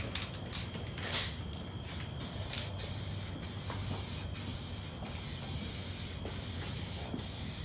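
Aerosol can of etching primer spraying in hissing bursts with short breaks between them, after a sharp click about a second in.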